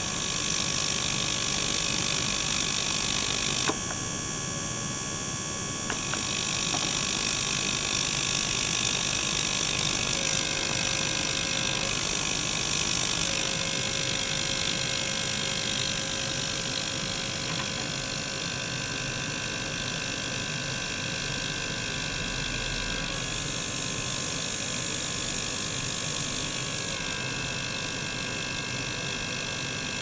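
Small ultrasonic cleaner and a small gear pump circulating its water, running together as a steady electric buzz with a high hiss. The sound shifts every few seconds, and the hiss drops out for about two seconds around four seconds in, as the flow and ultrasound are switched.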